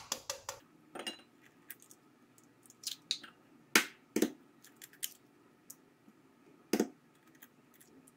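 Raw eggs cracked on glass and their shells handled while the yolks are separated from the whites: a string of short, sharp cracks, clicks and taps against a glass dish, the loudest about four seconds in and again near seven seconds.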